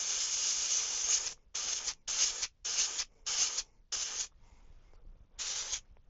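Airbrush spraying paint with a sharp hiss: one long spray, then a run of five short trigger bursts about half a second apart, and one more burst near the end.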